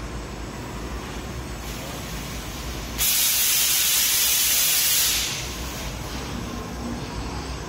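T230120 pipe laser cutting machine running with a steady low hum. About three seconds in, a loud hiss of gas from the cutting head starts suddenly, holds for about two seconds, then fades.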